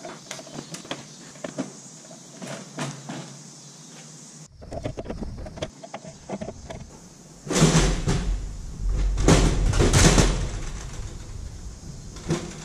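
Scattered clicks and knocks of hand work on a light aircraft's cowling and panels, then a louder stretch of rustling with a low rumble in the second half.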